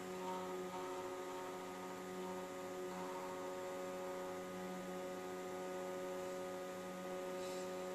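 Crospon EndoFLIP console humming steadily, a low hum with several steady tones, while its syringe pump withdraws saline from the catheter balloon and pumps it back in during the pre-use checkout.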